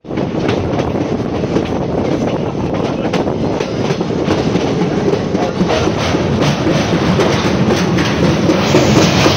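Express train running on the rails: a steady rumble with a rapid clatter of wheels over the track, growing slightly louder toward the end.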